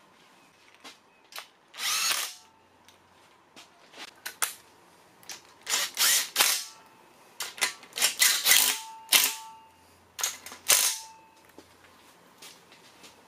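Makita cordless driver running in the oil pump's mounting bolts on an engine block, in many short trigger bursts of a fraction of a second each with brief pauses between, the busiest run between about six and nine seconds in.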